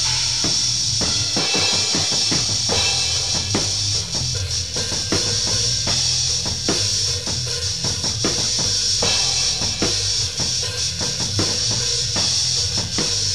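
Instrumental passage of a band's song: a drum kit plays a steady beat with kick drum and snare to the fore.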